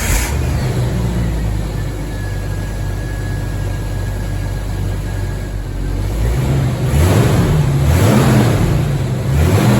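Jeep Wrangler YJ's 4.0-litre inline-six idling steadily through its old, patched-together exhaust, which has rusted through in spots, then revved a few times in the last few seconds.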